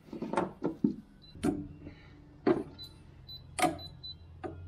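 Irregular sharp metallic knocks and clicks, about seven in all, as the strapped stainless steel rails are handled, with a low steady hum starting about a second and a half in.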